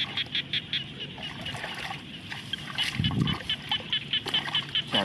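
Splashing and sloshing of shallow muddy rice-paddy water, with one louder splash about three seconds in. Behind it runs a fast, steady high-pitched pulsing of about six pulses a second.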